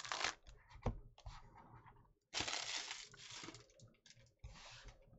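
Clear plastic wrapper of a trading-card hanger pack crinkling and tearing in three bursts as the cards are pulled out. The longest and loudest burst comes just past the middle. There is one short knock about a second in.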